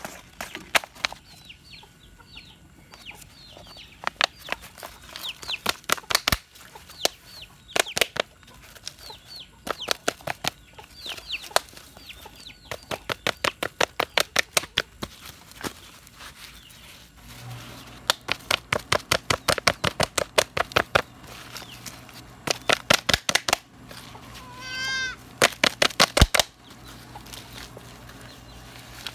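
Chickens in the background: runs of quick clucks again and again, high thin peeps like chicks during the first half, and a louder pitched hen call about 25 seconds in.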